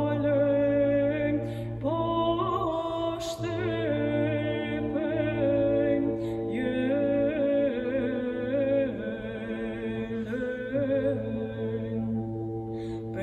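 A solo female voice sings Byzantine (psaltic) Orthodox chant unaccompanied, in a slow melismatic line with small wavering ornaments on the held notes. A steady low drone sounds beneath it.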